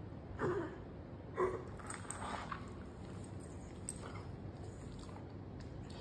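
Two short breath sounds from a dog with congestive heart failure, about a second apart, followed by a few faint high clicks.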